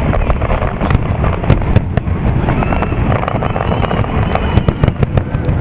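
Aerial firework shells bursting: a rapid, continuous string of bangs and crackles over a dense low rumble.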